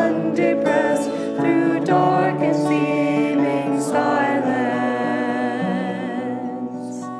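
Mixed choir of men's and women's voices singing a song, holding a long note near the end that fades.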